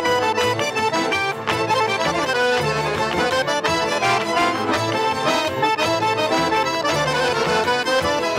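Solo piano accordion playing a busy, quickly moving melody over low bass notes.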